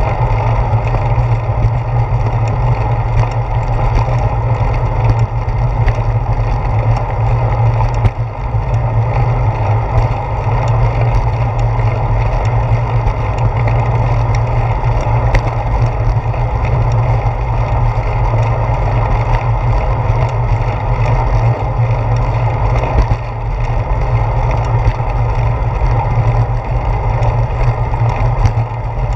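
Wind rumble and ride vibration picked up by a handlebar-mounted GoPro Hero 4 on a moving bicycle: a steady low rumble, with frequent small clicks and knocks as the bike rolls over the concrete path.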